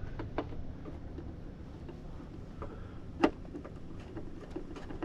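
Scattered light clicks and taps of a screwdriver and small parts as small screws are backed out of the dashboard screen assembly, with one sharper click a little past three seconds, over a steady low hum.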